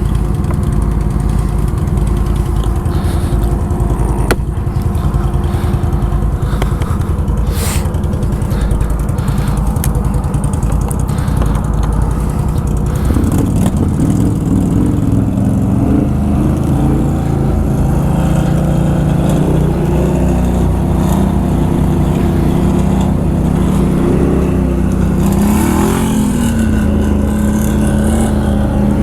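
ATV engine running steadily at low revs. From about halfway a second engine joins, its pitch rising and falling as it is revved.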